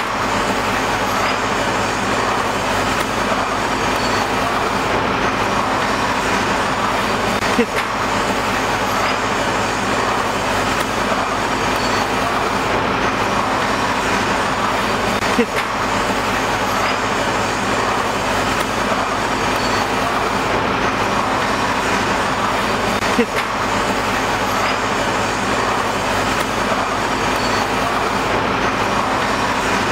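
HX 210A pneumatic paper drilling machine running steadily, with a sharp click about every eight seconds, each followed by a brief squeak.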